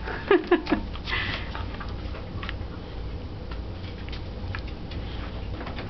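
A dog at play gives three quick, short pitched vocal sounds about half a second in, then sniffs and mouths a braided chew toy, with soft rustling and small scattered clicks.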